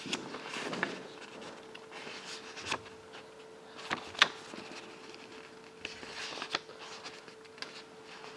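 Scattered soft knocks and clicks, the sharpest about four seconds in, over a faint steady hum.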